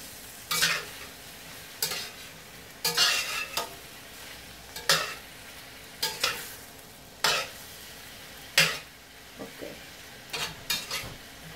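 Shrimp sautéing with onion and garlic, sizzling steadily in a stainless steel frying pan while a utensil stirs them. The utensil scrapes or knocks against the pan roughly once a second.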